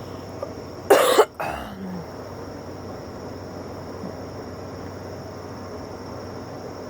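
A person coughs once, short and harsh, about a second in, over a steady faint high chirring of crickets.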